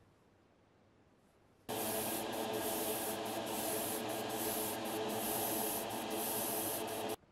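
Paint being sprayed onto a small model part: a steady hiss over the hum of a motor, starting suddenly about two seconds in and cutting off suddenly near the end, with a few brief dips in the hiss.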